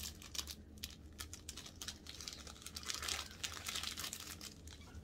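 Clear plastic cookie wrapper being handled and crinkling, a rapid crackle of small clicks that is busiest about three to four seconds in.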